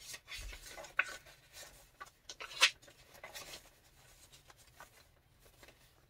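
Pages of a handmade paper junk journal being turned by hand: irregular paper rustling and flapping, with the sharpest rustles about one second and two and a half seconds in.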